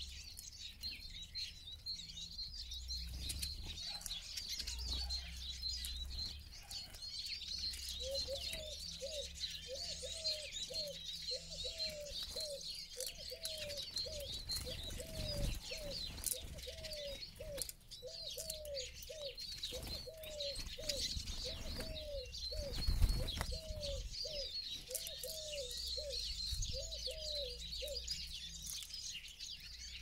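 Eurasian siskins twittering continuously at a feeder, with wingbeats now and then. From about eight seconds in until near the end, another bird gives a low hooting call a little over once a second, and a single low thump comes about two-thirds of the way through.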